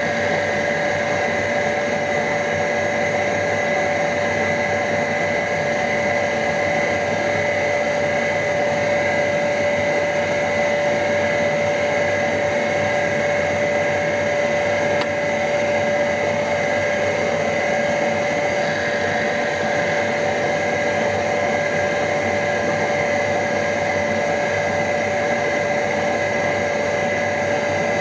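Surface grinder running with a steady whine, its grinding wheel sharpening the end of an end mill's cutting edges.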